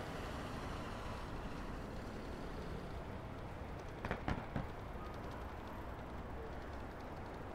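Steady road traffic noise heard from a moving bicycle, with a quick run of three knocks about four seconds in.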